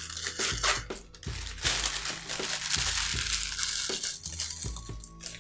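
Packaging crinkling and rustling with small clicks as a camera lens is unwrapped and handled, over faint background music.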